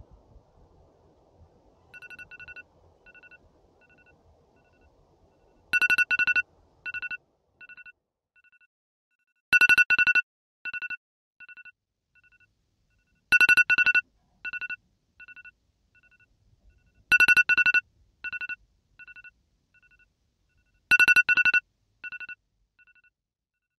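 Electronic alarm beeping: two quick high-pitched beeps followed by a few quickly fading repeats, the pattern coming round again about every four seconds. The first round is quiet and the following rounds are loud.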